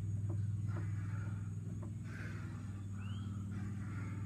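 Steady low hum of an idling utility-vehicle engine, with a few faint taps and a short high rising chirp about three seconds in.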